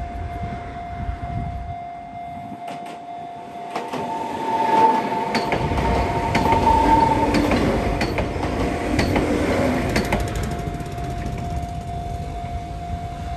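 Level-crossing warning alarm sounding steadily as an Enoshima Electric Railway (Enoden) electric train runs over the crossing, starting about four seconds in. The train's wheels clack over the rail joints with a rumble and a brief high squeal, fading away by about eleven seconds.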